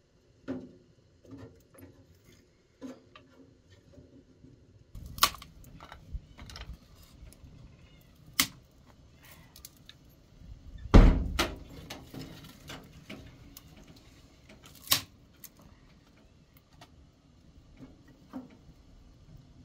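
Scattered sharp cracks and knocks of firewood being handled and pushed into a small wood-burning stove's firebox, with one heavier thump a little past the middle.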